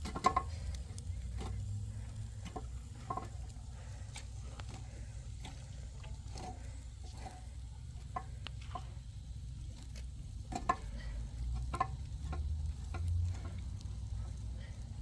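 Irregular light clicks and taps from something being handled or stirred, over a low steady rumble.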